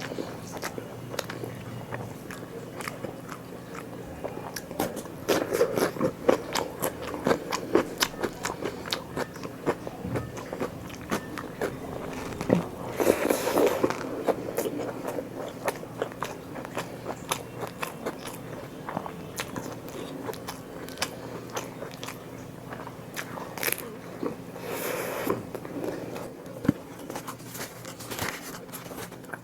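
Close-miked eating: a person biting and chewing food with irregular crunchy, crackling bites and wet mouth clicks. The bites come thickest a few seconds in, around the middle, and again near the end.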